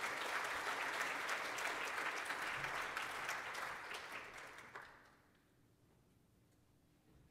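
Audience applauding, a dense patter of many hands that fades out about five seconds in, leaving faint room tone.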